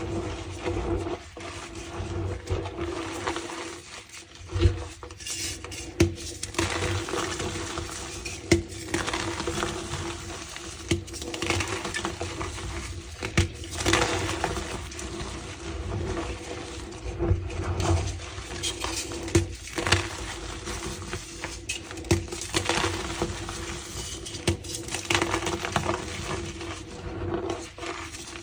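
Blocks of reformed gym chalk being crushed by hand: irregular crunching and crumbling with squeaky sounds from the packed chalk powder, and now and then a sharper crack.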